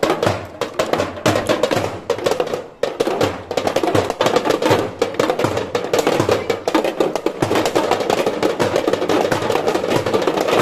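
Several small Bhogi hand drums beaten fast with thin sticks together: a dense, continuous clatter of drum strikes.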